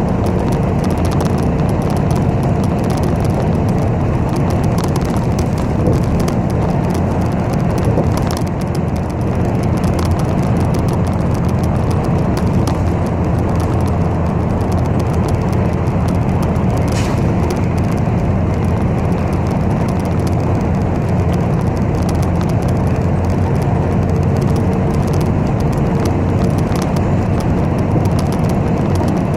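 Interior of a city bus on the move: steady low engine and road rumble heard from inside the cabin. A faint steady hum comes in near the start and again near the end.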